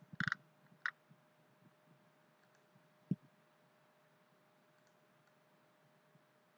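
Quiet room tone with a faint steady hum, broken by a quick cluster of sharp clicks at the start, another click just under a second in, and a single low thump about three seconds in.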